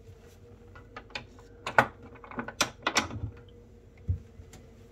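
Wooden flip-down steps being lifted up and clipped back in: a series of sharp clicks and knocks from the wood and the metal catches, loudest a little under two seconds in, with a dull thump near the end.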